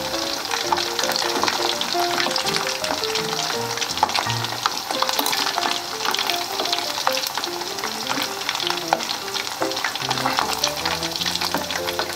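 Pieces of battered marinated meat (karaage) deep-frying in a pot of hot oil during the first fry: a steady crackling sizzle full of small rapid pops.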